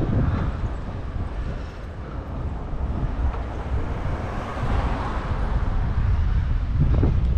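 Wind buffeting the microphone of a camera carried on a moving bicycle: a steady low rumble with a hiss that eases off about two seconds in and swells again a few seconds later.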